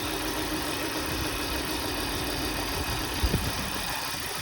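Volvo V70 2.4 engine idling unevenly with a misfire, heard close up under the hood. A single short knock sounds about three seconds in.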